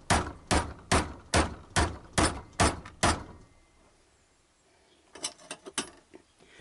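Hammer blows on a Yamaha XJ900S alternator: about eight sharp strikes, a little over two a second, trying to shift a part that won't come undone. After a pause, a few light clicks and rattles follow near the end.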